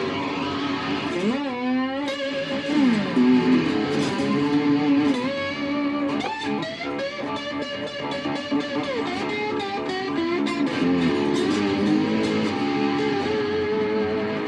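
Electric cigar box guitar played with a slide through its single-coil pickup. Held notes glide up and down in pitch between slides.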